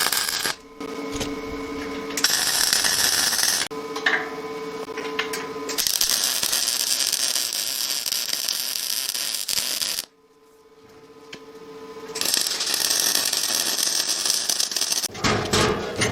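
MIG welding: a steady crackling hiss in four runs of a few seconds each, with a steady hum between the runs. Near the end comes a quick series of sharp metal knocks.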